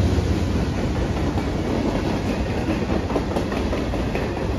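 CSX freight train's cars rolling past, a steady rumble of steel wheels on rail with irregular clacks as the wheels cross rail joints.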